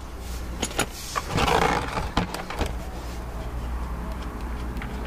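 A wrench clicking and scraping on a Toyota Prius's 14 mm oil drain plug as it is loosened, a few short sharp clicks in the first three seconds, over a steady low hum.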